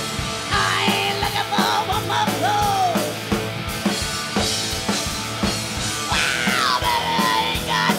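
Live rock band playing at full volume: a drum kit beat of about two hits a second under electric guitar and bass. A female lead singer sings long, sliding wails, about half a second in and again after six seconds.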